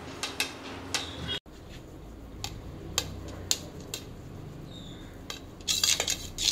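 Metal utensils clinking against large aluminium cooking pots: scattered sharp clinks, then a quick run of clatter near the end.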